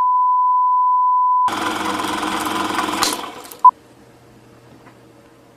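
A steady, high electronic beep tone stops about a second and a half in and gives way to a stretch of harsh, static-like noise ending in a click. A short, loud beep follows about three and a half seconds in, then only a faint hum.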